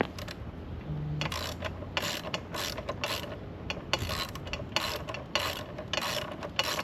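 Socket ratchet wrench being worked back and forth on a motorcycle wheel bolt, a short run of clicks on each stroke, about two strokes a second.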